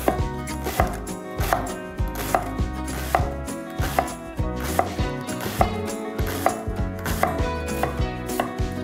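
Knife chopping food on a cutting board in a steady rhythm of sharp strokes, about one or two a second.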